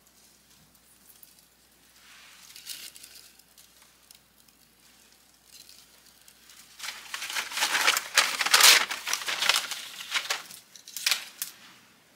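Dry crinkling and crackling as a dry conifer cone and kindling are fed into a wood-stove fire: a faint rustle early, then a loud dense run of crackling for about three seconds and one more short burst near the end.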